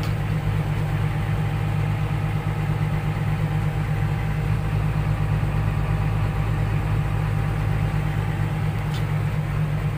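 Excavator's diesel engine idling steadily while it feeds jumper cables to charge the crane's freshly refilled batteries.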